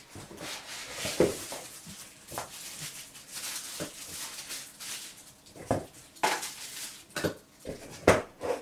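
Plastic wrapping crinkling and rustling in irregular bursts, with a few sharp knocks, as a soundbar is lifted out of its cardboard box and handled.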